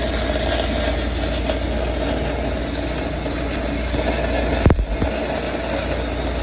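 Stick (shielded metal arc) welding arc crackling and hissing steadily as a rod is run on pipe: the steady sound the instructor calls "what you're looking for the whole time through." A steady low hum runs underneath, and a single sharp click comes about two-thirds of the way in.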